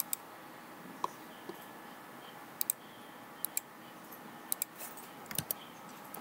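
Computer mouse and keyboard clicks: a handful of short, faint clicks, mostly in quick pairs, over light room hiss.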